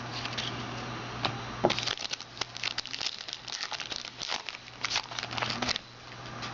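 Foil trading-card pack wrapper crinkling and being torn open by hand, in a quick run of crackles that stops near the end, over a steady low hum.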